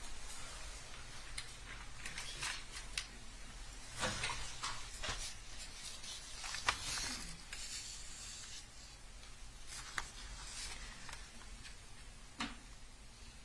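Faint paper rustling with scattered small clicks and knocks as the jury's verdict forms are handled and read, over low room hiss.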